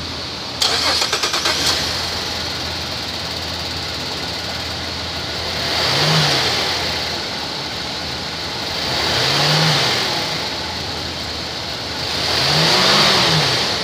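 2011 Chevrolet Traverse's 3.6-litre direct-injection V6 cranked by the starter for about a second, catching and settling to idle, then revved three times, each rev rising and falling back to idle.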